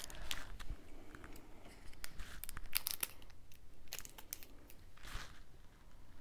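A granola bar's plastic wrapper being crinkled and torn open, with many sharp crackles and rustles throughout.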